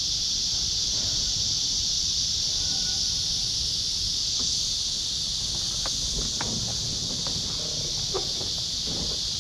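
Steady high-pitched insect chorus buzzing without a break, over a low rumble, with a few faint clicks.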